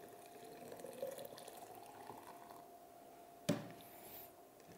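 Warm juice punch being poured through a sieve into a glass carafe, a faint trickling and dripping of liquid. A single sharp knock comes about three and a half seconds in.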